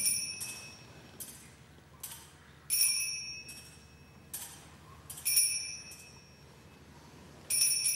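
Altar bells rung at the elevation of the chalice, marking the consecration of the wine: three main rings about two and a half seconds apart, each with a high, clear ring that fades, and lighter clinks between them.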